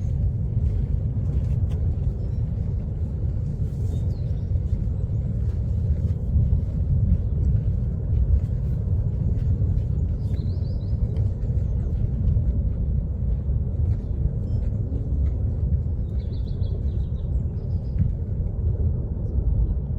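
Steady deep rumble of Kilauea's South Vent lava fountain roaring as it jets lava about 1,000 feet high.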